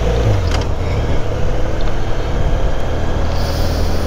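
Motorcycle engine running steadily while riding, a low steady hum under wind and road noise.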